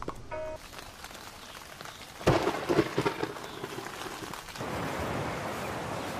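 Rain falling, broken about two seconds in by a sharp thunderclap that rumbles on for about a second. Near the end the rain gives way to a steady, louder wash of surf.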